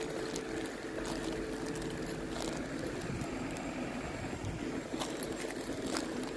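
CP Series 0450 diesel multiple unit, set UDD 0466, rolling slowly into the platform with its diesel engines running in a steady hum, and a few light clicks over the top.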